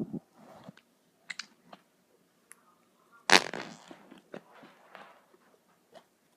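One short, noisy fart sound effect about three seconds in, with faint scattered clicks before and after it.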